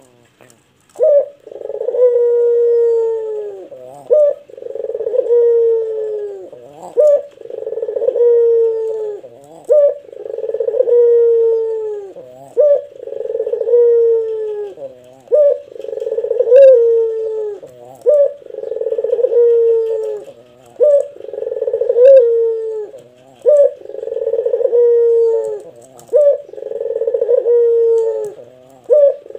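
Ringneck (Barbary) dove, the caged 'puter', cooing deep and long, a short sharp note then a long falling coo. The coo repeats about every two and a half seconds.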